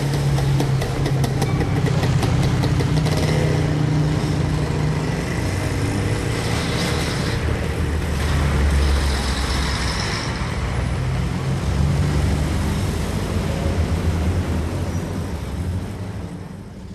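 City street traffic: vehicle engines running and passing, a steady low engine hum under road noise, with a rapid even ticking in the first few seconds. The sound fades out near the end.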